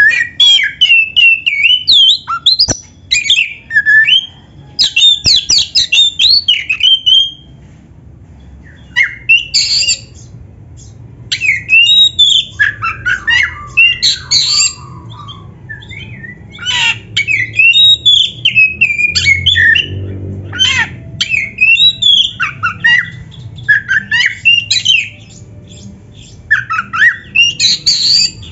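Oriental magpie-robin (kacer) singing loudly in rapid, varied phrases of whistles and harsh chattering notes, coming in bursts of a few seconds with short pauses between them.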